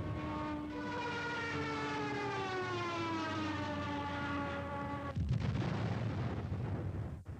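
Aircraft on an old film soundtrack: a drawn-out wail with many overtones, sliding slowly down in pitch. It breaks off about five seconds in and a short dull burst of noise follows.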